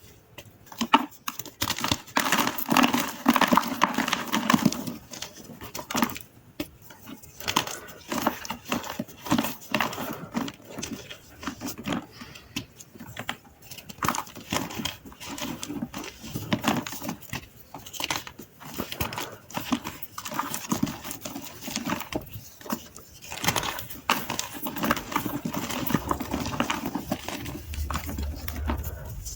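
Dry gym chalk being crushed and crumbled, a dense run of crisp crunches and crackles with brief pauses.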